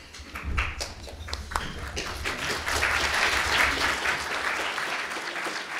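Audience applauding, the scattered claps thickening into dense clapping and then dying away near the end.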